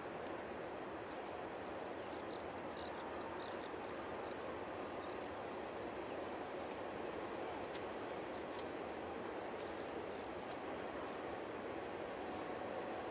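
Tiller outboard motor running steadily at low trolling speed, pushing a fishing boat slowly along. A few short high bird chirps come over it two to five seconds in.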